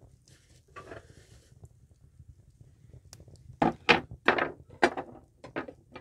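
A wooden board and a knife set down on a low wooden table: a brief rustle about a second in, then about five sharp wooden knocks in quick succession in the second half.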